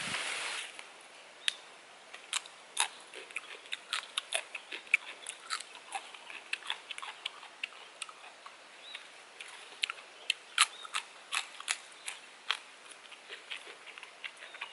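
Irregular sharp clicks and snaps, several a second: pea pods and leafy stems being picked and snapped off by hand.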